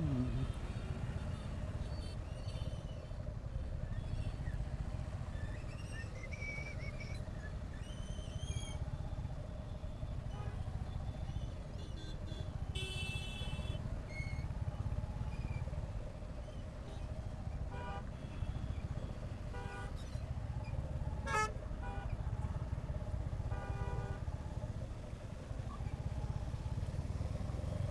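Royal Enfield Hunter 350's single-cylinder engine running steadily under road and wind noise on the bike-mounted camera. Horns from surrounding traffic toot several times, the loudest about thirteen seconds in, with a cluster of short toots near the end.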